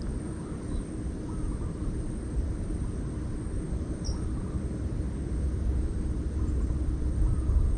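Steady low outdoor rumble, growing a little louder near the end, with a few faint short chirps above it.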